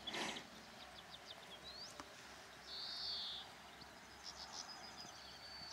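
A songbird repeating a short, high, arched whistle about every three seconds, with quick twittering ticks between the phrases. A brief scuffing noise sounds at the very start.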